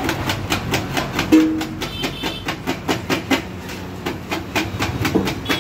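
Two metal spatulas chopping and clanging rhythmically on a flat iron griddle as kothu parotta is minced, about five or six sharp strikes a second.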